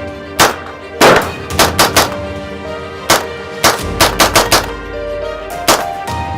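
POF Rebel 22 pistol firing .22 LR rounds: a string of about a dozen shots, irregularly spaced with several quick bunches, over background music.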